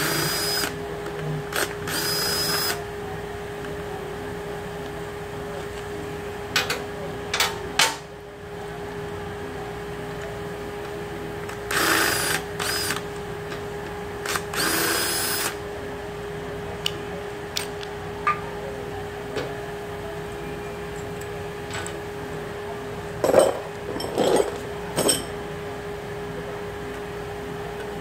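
Cordless power tool running in four short bursts of about a second as bolts on the timing chain parts of a Ford 3.0 V6 are spun out, then sharp metal clanks near the end as parts are handled and pulled off. A steady hum runs underneath.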